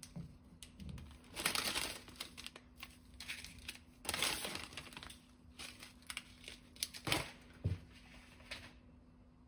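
Plastic instant-noodle wrapper crinkling in several bursts as the soup and flake sachets are pulled out of it. A few light knocks come near the end.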